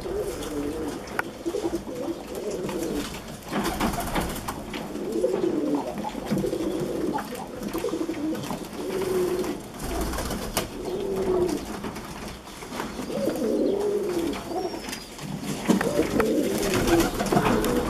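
Domestic pigeons cooing over and over, several birds' calls overlapping, with scattered short taps among them.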